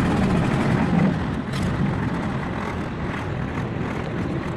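An engine running steadily, a low rumble under a broad noise, a little louder in the first second or so.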